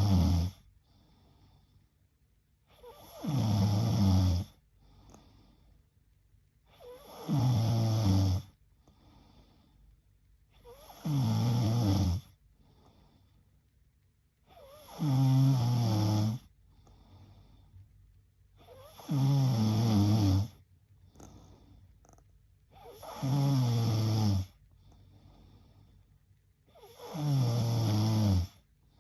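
A sleeping woman snoring in a slow, even rhythm: eight snores, one about every four seconds, each about a second and a half long and dropping in pitch, with faint breaths between them.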